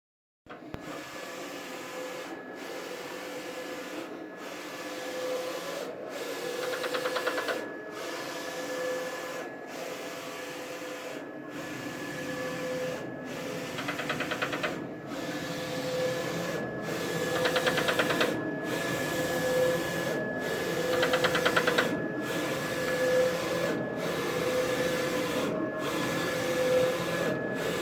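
Roland VS-540i wide-format printer's print carriage shuttling back and forth while printing, with a motor whine and a pass about every 1.7 seconds. On some passes there is a burst of rapid clattering: the popping, clanking noise that the carriage makes when moving toward the control panel, a fault whose cause the owner doesn't know.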